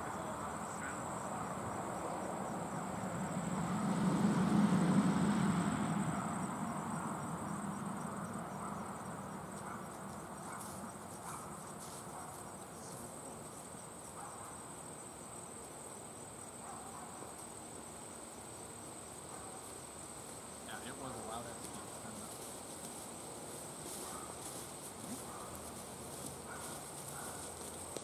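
Crickets chirping steadily in a high, even tone. A low rumble swells and fades about four to six seconds in.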